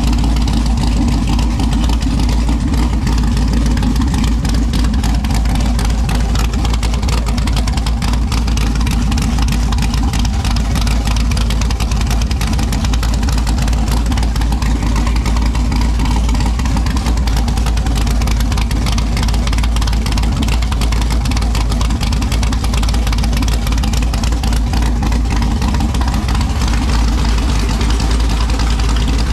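Texas Speed 416ci LS3 V8 idling steadily on Holley EFI.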